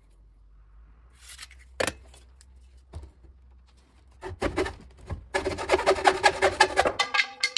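Hacksaw cutting through a wooden broom-type handle clamped in a vise. A few scattered strokes come about halfway in, then fast, steady rasping strokes follow in the last two seconds, stopping shortly before the end.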